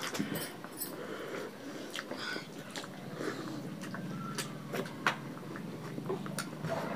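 People eating rice and fish curry by hand from steel plates: fingers mixing and scooping food against the metal make scattered light clicks and scrapes, with chewing.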